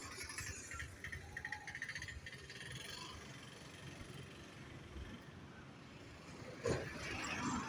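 Faint roadside traffic: a vehicle running past, with a short louder noise near the end.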